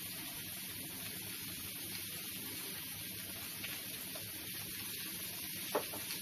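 Chicken and apple pieces sizzling steadily in hot oil in a wok, with one short click near the end.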